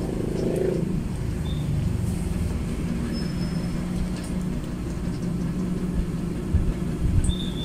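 Low steady hum from a speaker driven by a 300-watt integrated amplifier, a sign of DC on the amplifier's speaker output.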